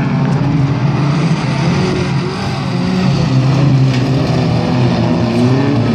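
Several hotrod race cars' engines revving as they race round a dirt track, their pitch rising and falling, getting louder as two cars pass close by about four seconds in.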